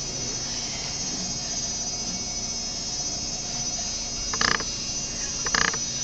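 Steady hiss and low hum of room tone, broken twice near the end by short sounds.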